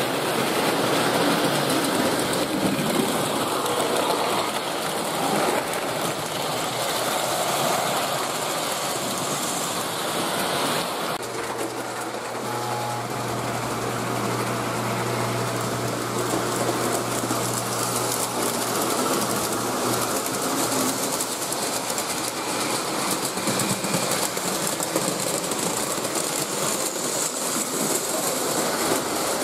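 Postwar Lionel O-gauge model trains running on three-rail track: a steady whir of electric motors and clatter of wheels on the rails. A low steady hum joins in for several seconds midway.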